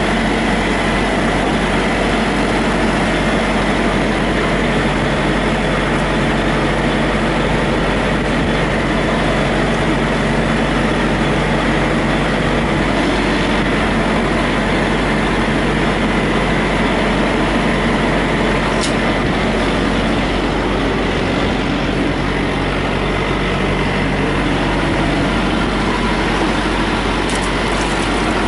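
Semi truck's diesel engine idling steadily, with a thin high whine over it. There are a couple of light clicks, one near the end.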